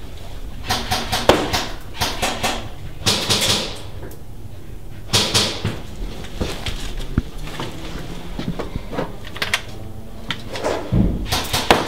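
Irregular knocks, clicks and scuffs inside a small room, coming in short clusters every second or two.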